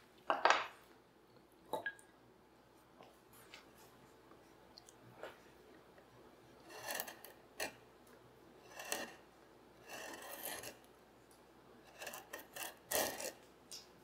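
Steel hand tool scraping along the edge of a walnut board in irregular separate strokes, some short and some about half a second long, the loudest near the start and near the end.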